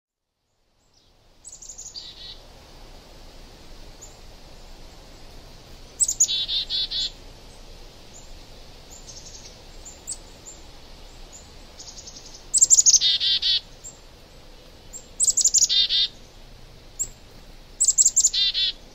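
A songbird singing short phrases every few seconds, each a quick run of high notes ending in a trill, over a faint steady background hiss.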